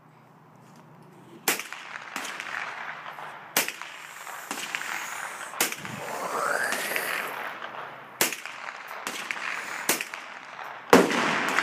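AR-15 rifle firing about six single shots at irregular intervals of roughly two seconds, each sharp crack trailing off in echo; the loudest shot comes near the end.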